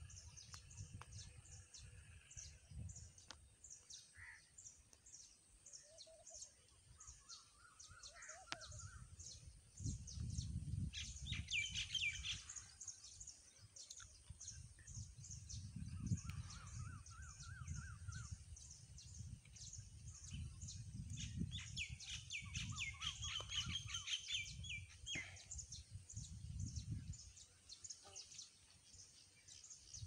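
Small birds calling faintly: a steady run of short, high chirps about twice a second, with bursts of trilling calls about a third of the way in and again past two-thirds.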